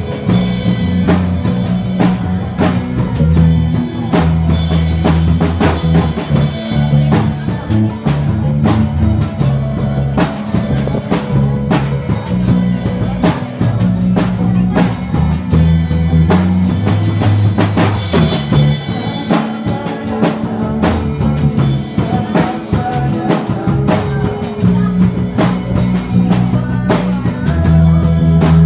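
Live band playing a song: a drum kit keeps a steady beat under guitar and a moving bass line.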